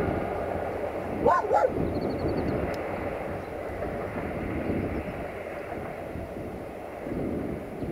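A passenger train runs away along the track with a steady rumble. A dog barks twice, quickly, about a second and a half in, louder than the train.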